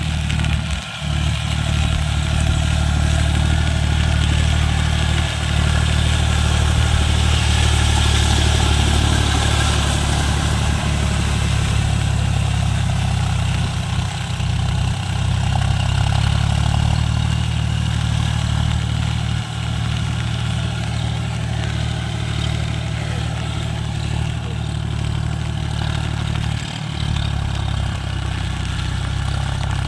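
John Deere tractor's diesel engine running steadily with a low, even drone, a little louder for several seconds early in the stretch.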